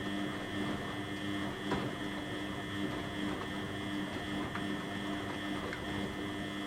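Beko WTB841R2W washing machine running through a cycle: a steady motor hum and whine over a noisy churn, with a few faint clicks.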